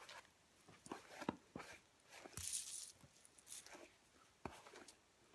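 Faint strokes of a hairbrush through hair: soft clicks and rustles, with one longer hissing stroke about halfway through.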